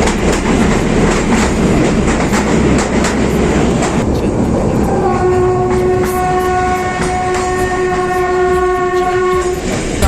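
Kalka–Shimla narrow-gauge toy train running, its wheels clattering on the rails over a loud rumble. About halfway through, the locomotive's horn sounds one long, steady blast of nearly five seconds.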